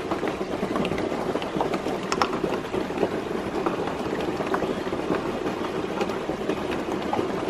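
Steady rush of running water, with scattered light clicks and taps from a brass ball valve and PVC fittings being handled and tightened.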